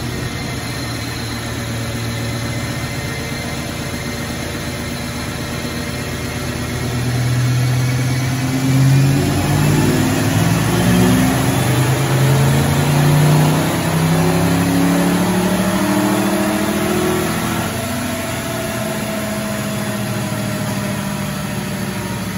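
1994 Ford Mustang GT's 5.0-litre V8 on a chassis dyno in a baseline power run in third gear: running steadily, then about seven seconds in the revs climb for some ten seconds under full throttle, loudest near the middle, before it lets off and falls back to a steady lower run.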